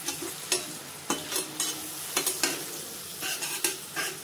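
Vegetables and sauces sizzling in a metal kadai while a steel spatula stirs them, scraping and knocking against the pan in about a dozen irregular strokes over a steady frying hiss.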